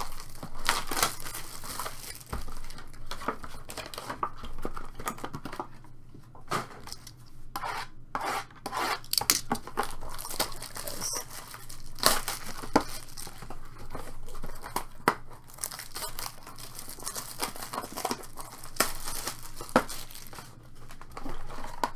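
Clear plastic shrink wrap being torn and peeled off sealed trading-card boxes, crinkling irregularly with sharp snaps now and then.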